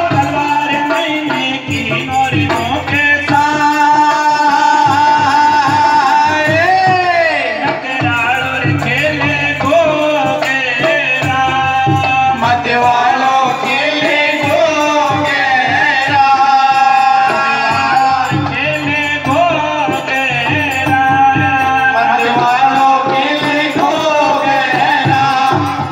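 Live devotional bhajan music: sung melody over an electronic keyboard and a steady drum beat, loud and continuous.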